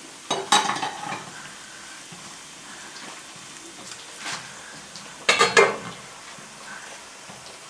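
Wooden spoon scraping and knocking against an enamel pan as fried onion with ground paprika is stirred, over a faint steady sizzle. There are two short bursts of clattering strokes, about half a second in and about five seconds in, the second the loudest.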